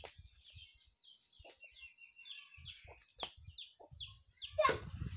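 Faint bird calls: a run of short, high, falling chirps, two or three a second, with a louder squawk about four and a half seconds in.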